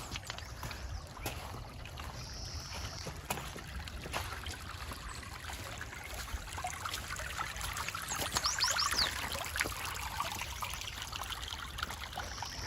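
Water trickling steadily, as from a small stream. A few quick, high, falling chirps sound about eight seconds in.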